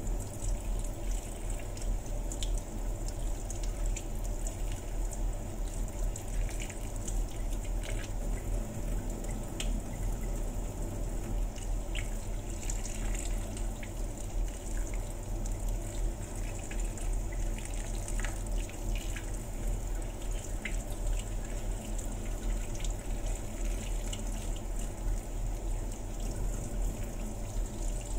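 Kitchen faucet running steadily, its stream splashing over boiled shark's fin and into a water-filled basin as gloved hands rinse it, with scattered small ticks and splashes.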